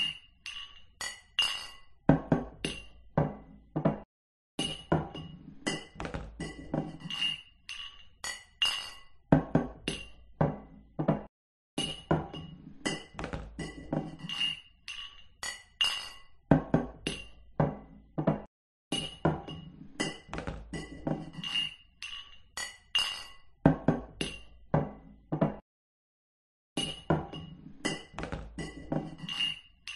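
Glass beer mugs clinking together in toasts, over and over, each clink ringing briefly. The clinks come in irregular clusters, with a short drop-out to silence about every seven seconds.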